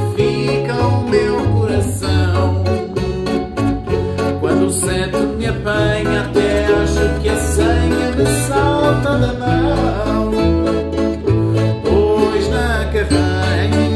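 Madeiran traditional string quartet playing: braguinha, rajão and viola de arame strummed and picked over a bass ukulele line, with dense plucked chords and strong, steady bass notes.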